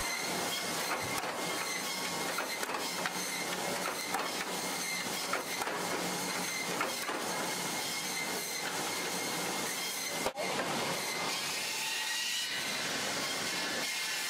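Steady machine noise, a hiss with many faint clicks and a thin steady whine, briefly cut off about ten seconds in.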